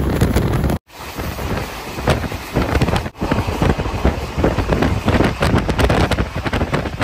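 Circar Express passenger train running at speed, heard from inside the coach: a steady rumble with rapid clicks and rattles from the wheels and coach, and wind buffeting the microphone. The sound drops out briefly twice, about a second in and about three seconds in.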